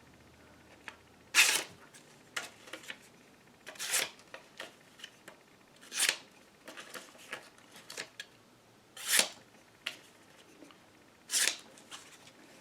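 Blade of a CRKT Jake folding pocket knife making five quick slicing cuts, a sharpness test, each a short hissing swipe a few seconds apart, with small handling clicks and rustles between them.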